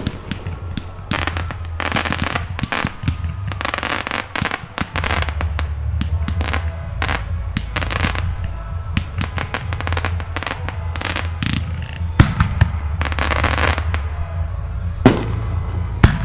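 Aerial fireworks display: shell after shell bursting, with dense clusters of rapid crackling pops and several sharp, loud bangs in the second half, over a continuous low rumble.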